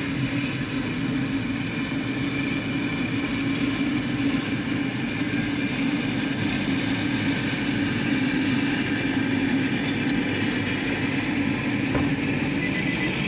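A steady engine hum at an even level, heard from inside a car's cabin.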